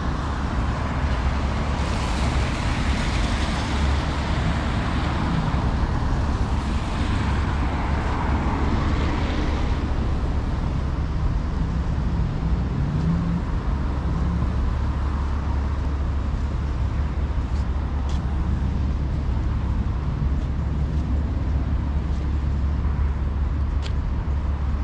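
Urban road traffic noise: a steady low rumble, with a vehicle passing and fading away in the first ten seconds or so, and a few faint clicks later.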